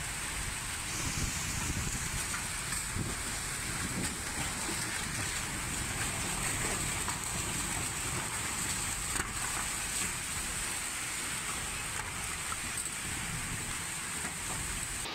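Typhoon-force wind and torrential rain, a steady rushing noise, with the wind buffeting the microphone as a low rumble.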